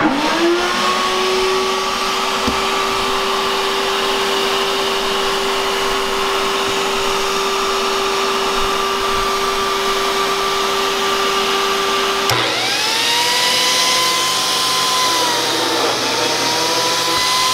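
Shop vacuum connected to a biscuit joiner's dust port, spinning up and then running with a steady whine. About twelve seconds in, the sound breaks off and motors spin up again, the higher whine dipping twice as the biscuit joiner's blade is plunged into the wood.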